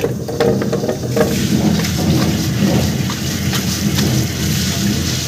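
Commercial wet grinder running, its stone roller turning in a steel drum with a steady low hum, while soaked rice goes in and the grains make many small ticks.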